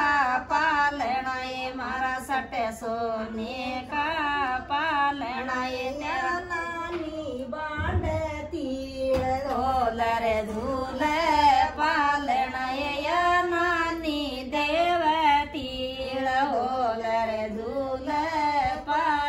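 Music: a woman singing a melody with long, wavering held notes.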